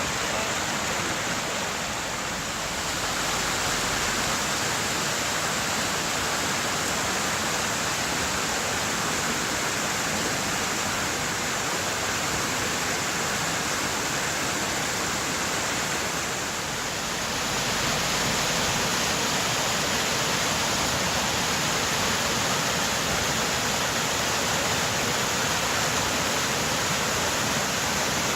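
Rushing river water from the Pigeon River, a steady dense rush of the current, with brief dips in level about two and a half seconds in and again about seventeen seconds in.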